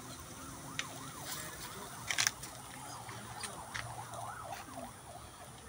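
Faint clicks and scrapes of a metal spatula on a rebar grill as whole fish grilling over charcoal are turned, the loudest about two seconds in. Behind them runs a faint wail that rises and falls about three times a second.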